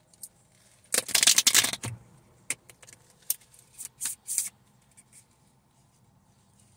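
Deck of tarot cards being shuffled and handled: a dense rustle of card shuffling about a second in, then a few scattered sharp card snaps.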